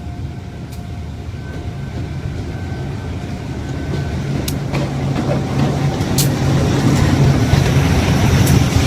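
Diesel locomotive engine running as the train approaches, growing steadily louder, with a few sharp clicks over it.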